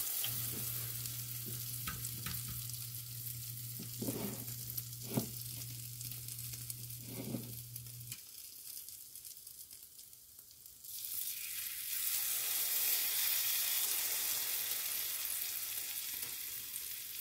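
Food sizzling in a hot frying pan, with a few light knocks of a utensil. A low steady hum runs under it for the first half and stops, and the sizzle grows louder again in the second half.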